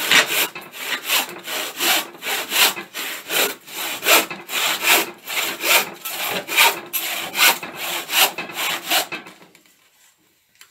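Hand saw cutting through a wooden board in steady back-and-forth strokes. The strokes stop about nine seconds in as the cut goes through.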